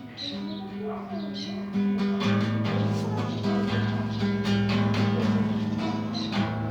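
Acoustic guitar being fingerpicked: single notes at first, then about two seconds in it gets louder as low bass notes join the melody.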